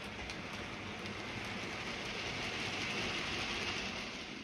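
A model railway train, a diesel locomotive with its wagons, running past on the track: a steady hiss of wheels and motor that grows louder as it comes close and cuts off suddenly near the end.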